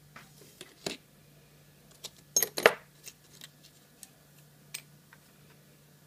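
Small metal lock parts and a padlock being handled on a workbench: scattered light clicks and clinks, with a louder cluster of metal clatter about two and a half seconds in.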